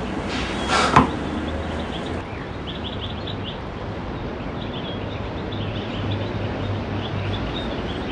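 A swelling whoosh that ends in a short sharp knock about a second in, over a steady hiss and low hum, with faint high chirps scattered through the middle.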